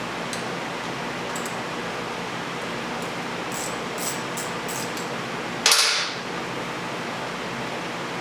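Steady background hiss with a few light clicks, then one sharp metallic clack about five and a half seconds in, dying away over half a second, like a tool or part knocking against metal.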